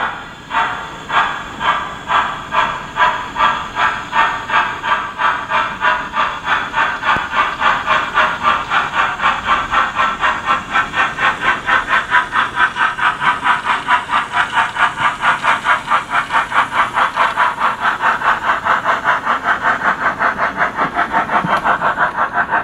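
Digital steam sound from the Zimo sound decoder in a Bachmann OO gauge LYR 2-4-2T tank engine, played through the model's loudspeaker: exhaust chuffs that start at about two a second and quicken steadily to about four a second as the locomotive gathers speed with its train.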